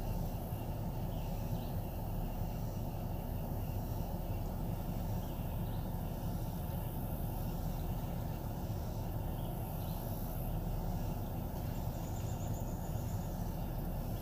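Outdoor ambience: a steady low rumble with faint high chirps, and a short, rapid high trill about twelve seconds in.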